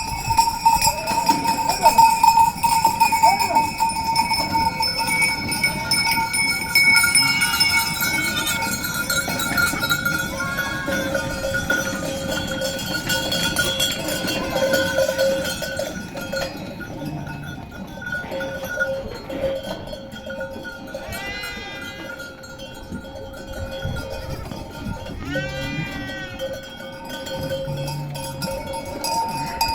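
Bells on a moving flock of sheep ringing steadily, several tones at once. Sheep bleat twice in the second half.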